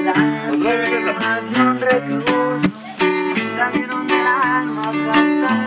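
Bajo sexto strummed in a steady norteño rhythm, chords struck on each beat with bass notes between, and a wavering higher melody line over it.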